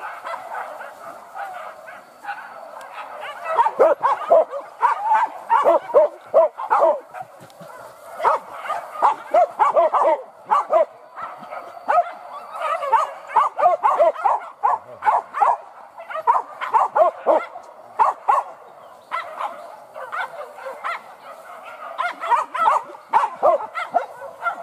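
A pack of hunting dogs barking and yelping in quick, overlapping bursts, with a few short lulls between flurries.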